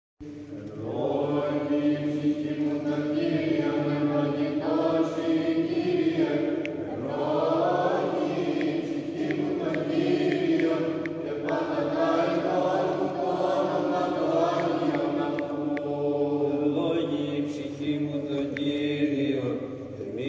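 Greek Orthodox Byzantine chant: voices singing a slow, moving melody over a steady held drone (the ison).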